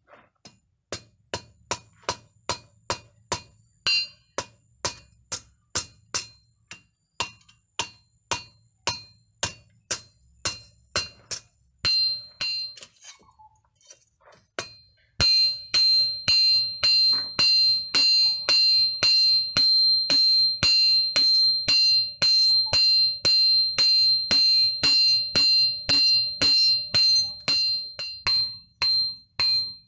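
Hand hammer striking a handled chisel-type top tool held on red-hot steel over a steel block anvil, steady blows about two a second. After a short pause partway through, the blows come louder, with the metal ringing on a high note between strikes.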